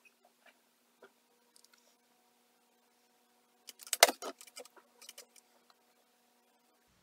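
Small hard makeup items clattering as they are handled and set down: a quick cluster of clicks and rattles about four seconds in, then a few lighter clicks, over a faint steady hum.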